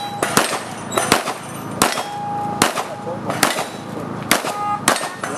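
A series of about seven handgun shots, roughly one every 0.8 s, fired during a USPSA practical-shooting stage. A ringing tone lingers after some of the shots.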